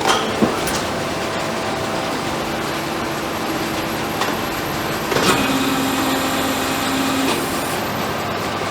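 Factory floor ambience: a steady din of running machinery with sharp metallic clanks twice near the start and again about five seconds in, followed by a low hum for about two seconds.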